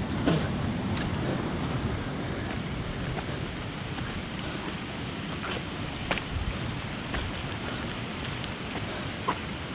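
Steady hiss of rushing water, with scattered sharp ticks and taps over it.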